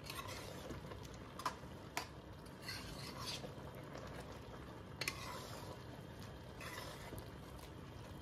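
Metal spoon stirring boiled black chickpeas and yogurt in a metal pot: wet scraping strokes against the pot, with a few sharp clinks of spoon on metal.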